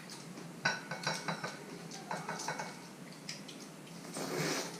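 Tableware clinking: a handful of short, light clinks with a brief ring, spread over a few seconds, followed near the end by a soft rustle.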